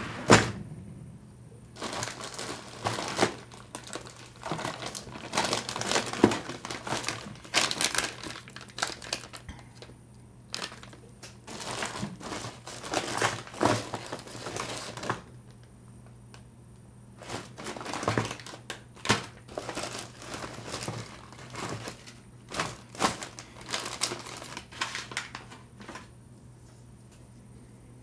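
Clear plastic bags crinkling and rustling in a drawer of parts as they are handled, in irregular bursts with short pauses, after a knock right at the start.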